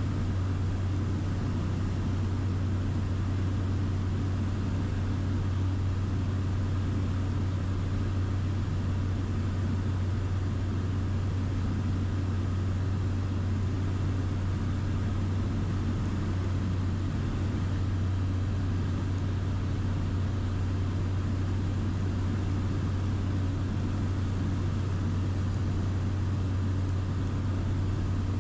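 Steady cabin drone of an airplane in flight: a strong, even low hum from the engine under a wide rush of airflow, unchanging throughout.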